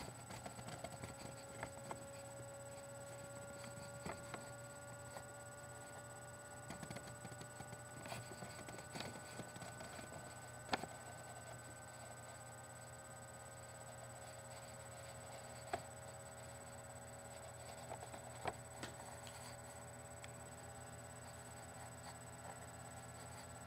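Quiet room tone: a steady low hum with faint whining tones that slowly rise in pitch, and scattered soft taps and clicks, a sharper one about eleven seconds in.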